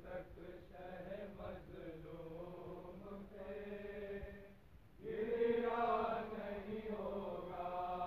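Male voices chanting a noha, the Urdu mourning lament, in long drawn-out sung lines. It dips briefly about four and a half seconds in, then comes back louder.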